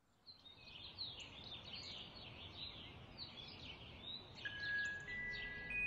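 Small birds chirping busily, many short quick chirps overlapping. About four and a half seconds in, soft chime-like music notes begin to ring over them.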